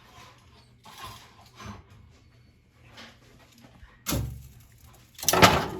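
Oven being loaded and shut: a few light knocks, then a sudden heavy thump about four seconds in and a louder clattering burst near the end, typical of a pan sliding onto the rack and the oven door closing.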